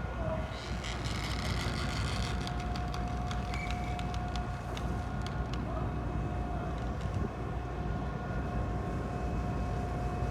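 Sado Kisen car ferry Kogane Maru's machinery running with a steady low rumble and a held tone, while a run of sharp metallic clanks, densest in the first couple of seconds and thinning out by about five seconds in, comes as the anchor is weighed.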